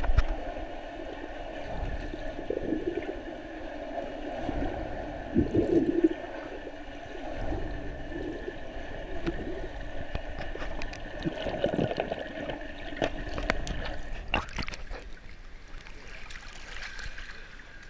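Water gurgling and rushing as heard underwater, muffled and uneven, with surges as the swimmer pulls through the water. About fourteen and a half seconds in there are sharp splashy clicks as the microphone breaks the surface, and the sound turns thinner and quieter.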